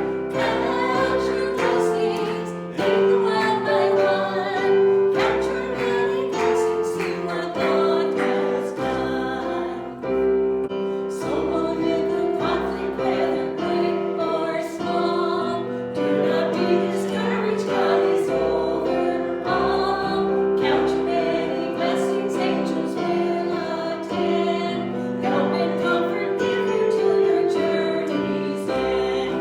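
Congregation singing a hymn with piano accompaniment, continuous sustained notes and chords.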